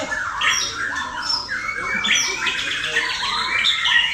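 Male white-rumped shama (murai batu), kept in competition form, singing a rapid, unbroken run of varied high-pitched phrases.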